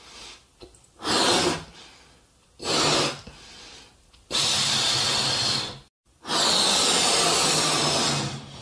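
Hard breaths blown by mouth into latex balloons to inflate them, four puffs in all. The first two are short; the last two are longer, about one and a half and two seconds each.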